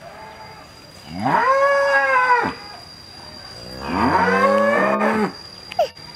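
Holstein-Friesian dairy cows mooing: two long moos about a second and a half each, each rising in pitch and then held, the second lower and rougher than the first.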